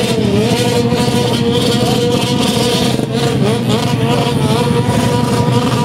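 Motorcycle engine held at high revs, its pitch wavering slightly up and down with the throttle.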